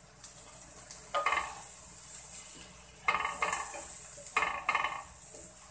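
Chopped onion, garlic and ginger sizzling in hot oil in a pan as they are sautéed, with a steady high hiss. A wooden spatula stirs and scrapes across the pan in several strokes, about one, three and four and a half seconds in.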